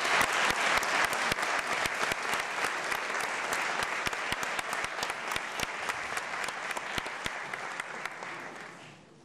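Audience applauding, the clapping gradually thinning and dying away near the end.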